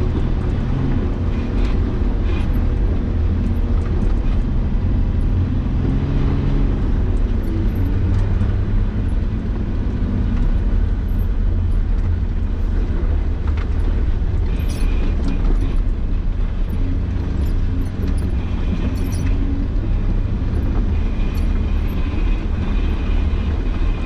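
Nissan Patrol Y60 off-road vehicle driving over rough terrain: a steady low engine drone, its pitch clearest for the first several seconds, with scattered knocks and rattles.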